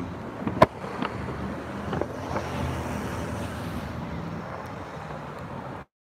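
Road traffic going by on a city street: a steady rush of car tyres and engines that swells a little around the middle and eases off, with a sharp click about half a second in.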